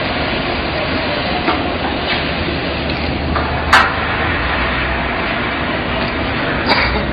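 Sharp metal knocks from the steel conveyor frame being worked on during assembly: a strong one about four seconds in and another near the end, with fainter taps earlier, over a steady rushing background noise.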